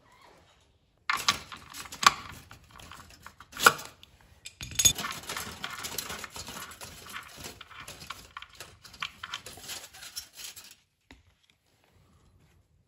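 Hand work at a motorcycle's oil drain plug: a few sharp metal clicks, then several seconds of small rattles and scrapes as the plug is worked loose, stopping about eleven seconds in.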